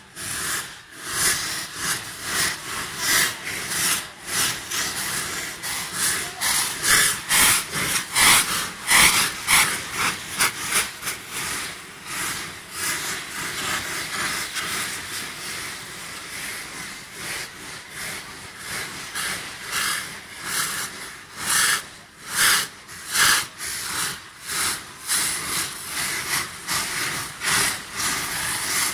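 Many saites (handmade cardboard tubes packed with gunpowder) burning at once, a loud continuous hissing and fizzing as they spray sparks. The hissing is broken by frequent sudden louder bursts, thickest about a third of the way in and again near the end.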